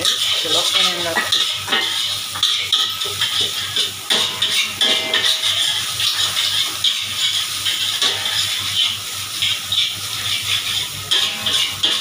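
A metal spatula scraping and clanking against a steel wok in quick, repeated strokes as fried rice is stir-fried over the flame, with the rice sizzling.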